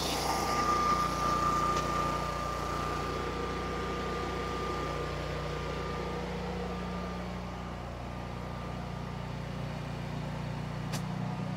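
Generac home standby generator's G-Force engine running steadily while powering the house, with a steady high whine above the engine hum. A single sharp click comes near the end.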